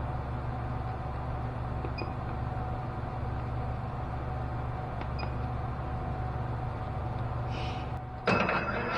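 Steady electric hum of shop machinery with a couple of small clicks. About eight seconds in, a machine-tool motor starts and spins up, its whine rising in pitch.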